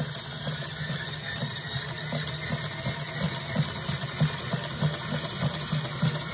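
Electrically driven Teching all-metal model turbofan engine spinning on its stand as the throttle is worked: a steady hiss with an irregular crunchy, grinding rattle underneath. The owner puts the rattle down to fan blades that sit loosely together, not to a real grind; the bearings are ball bearings.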